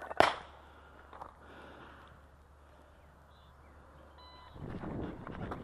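A single sharp crack about a quarter second in, then quiet. About four seconds in, a short electronic beep, the shot timer's start signal, followed by quick footsteps crunching on wood-chip mulch as the shooter runs.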